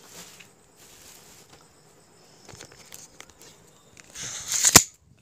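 Faint rustling of a package being handled, then near the end a loud, brief rubbing and scraping ending in a sharp knock as the recording phone is grabbed and moved.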